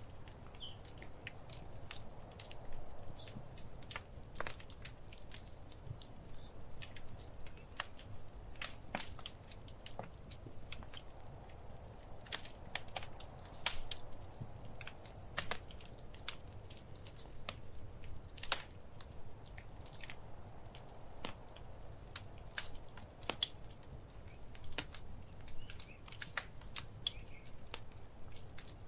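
Wood fire crackling in a fireplace: irregular sharp pops and snaps, some louder than others, over a steady low rumble of the burning fire.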